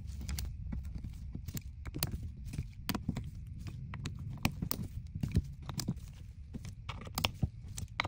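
A hand ratchet clicking, with its socket and the bolts knocking against the metal, as the gearbox case bolts are run in and snugged down: a quick, irregular series of sharp clicks.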